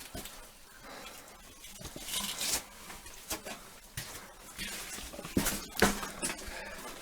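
Irregular scuffs, knocks and scraping of people clambering down over rock, with a few louder knocks in the second half.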